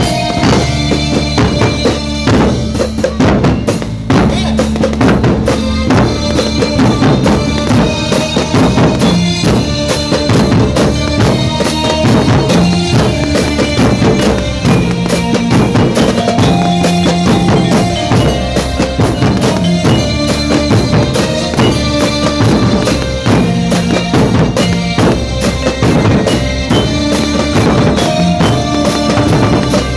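Loud music with a steady, fast drum beat over a bass line and held melodic notes.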